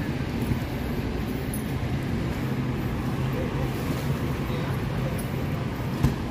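Steady vehicle noise with a low, even engine hum, and a single brief knock near the end.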